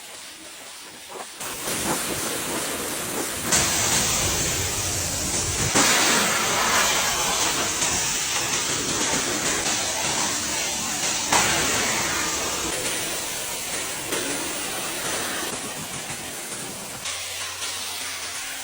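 A high-pressure jet hissing steadily. It starts about a second and a half in, gets louder about two seconds later, and eases off a little near the end.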